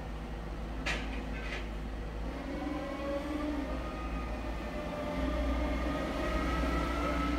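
A steady low mechanical hum with faint tones that slowly rise in pitch from about two seconds in, the hum growing louder near the end. About a second in come two short clicks, from digits being keyed on the phone's touchscreen dialer.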